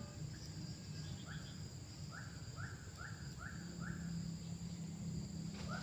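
Steady high insect chirring from crickets or cicadas, with a bird giving a run of about six short, identical calls, roughly two a second, in the middle. A low steady hum runs underneath.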